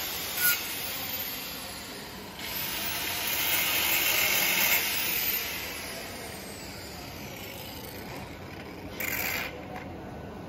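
Handheld angle grinder grinding on a stainless steel pipe weld: a rough, hissing rasp that gets louder about two seconds in, then fades about halfway through as the grinding stops. A brief scrape near the end.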